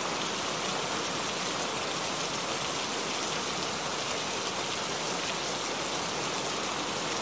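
Heavy rain pouring down, a steady, even hiss with no breaks.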